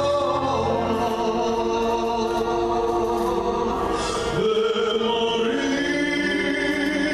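A man singing in a classical style over a backing of choir-like held chords; the harmony shifts to a new chord about four to five seconds in.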